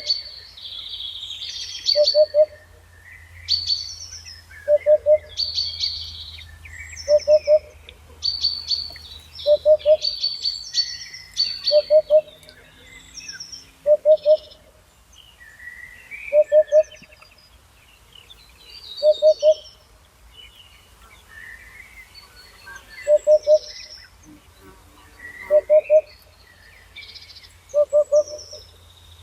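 Birdsong: a low two-note call repeated about every two and a half seconds stands out as the loudest sound, while other birds chirp and warble higher up in between.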